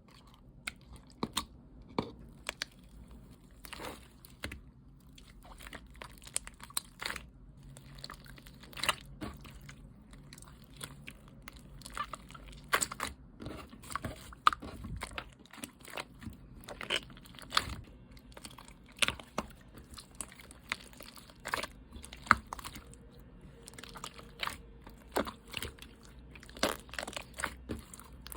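Hands playing with a soft slime, making sticky clicks and small pops at an irregular pace as it is pressed and stretched.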